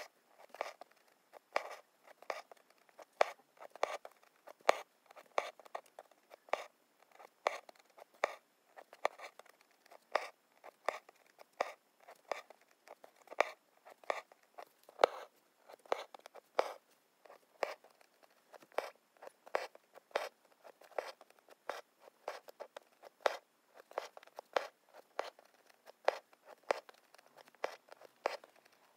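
Hand embroidery: a needle poking through fabric stretched taut in an embroidery hoop and the thread rasping as it is drawn through, stitch after stitch, about once a second.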